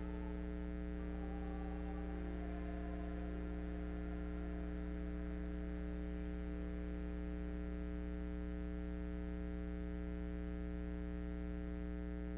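Steady electrical mains hum and buzz in the recording, a low hum with many overtones stacked above it, unchanging throughout. The last faint trace of music dies away in the first second or two.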